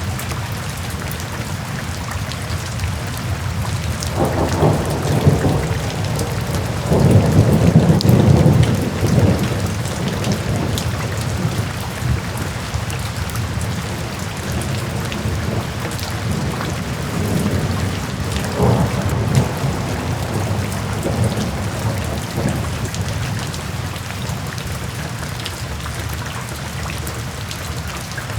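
Steady rain falling, with low rolls of thunder: a long rumble from about four to nine seconds in, the loudest part, and weaker rumbles around eighteen to twenty-two seconds.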